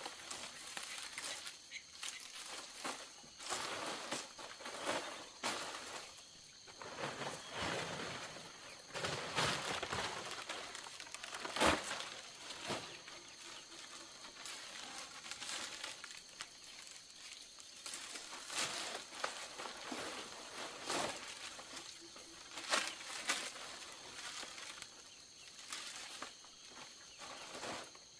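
Irregular knocks, clicks and rustling, the loudest a sharp knock about twelve seconds in, over a faint steady high-pitched drone.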